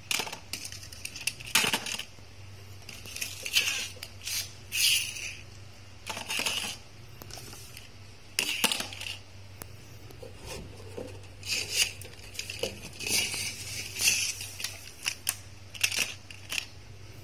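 Small toy cars being handled on a wooden board: irregular clicks, clatters and short scraping rattles, over a faint steady low hum.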